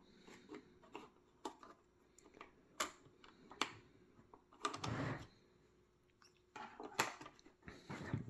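Pieces of a puzzle box being handled and fitted, giving scattered sharp clicks and taps, with a short scraping rustle about five seconds in.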